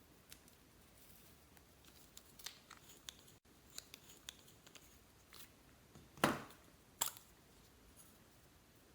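Glossy slime being handled and mixed: scattered small sticky clicks and crackles, with a louder, fuller squelching pop about six seconds in and a sharp click a second later.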